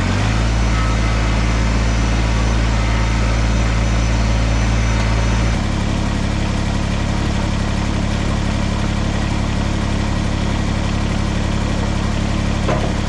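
Kubota tractor's diesel engine running steadily, its note shifting about halfway through.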